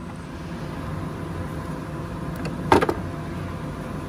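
Steady low background hum, with a short, sharp clatter about three seconds in as a hand works among the parts in the car's engine bay.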